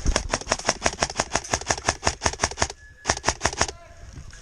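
Airsoft gun firing a rapid string of shots, about eight a second, for nearly three seconds, then a short burst of about five more after a brief pause.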